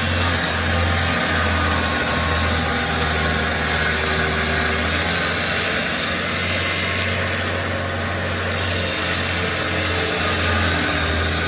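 Large stump grinder running steadily, its engine holding a constant deep drone under a hiss of noise.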